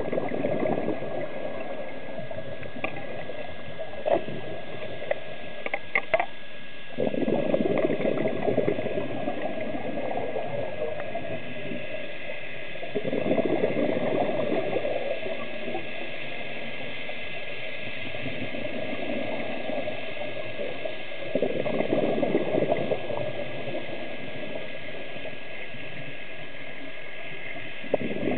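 Scuba regulator exhalations heard underwater: three long bubbly rushes of exhaled air, about seven seconds apart, over a steady underwater rush. A few sharp clicks come early on.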